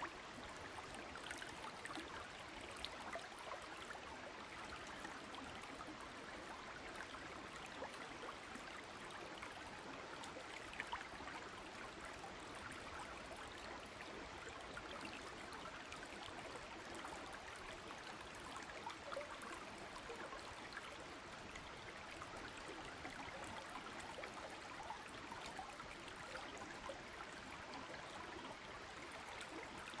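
Shallow mountain stream flowing over rocks and pebbles: a steady rush of water with small splashes and trickles now and then.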